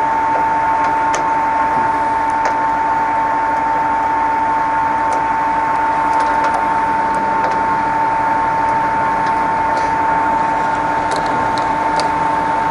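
Colchester Student 1800 geared-head centre lathe running steadily at 70 RPM, with its lead screw and feed shaft turning, giving a constant gear whine, while the feed gearbox is taken through its changes, with a few faint clicks. The gearbox goes in and out of every change and works as it should.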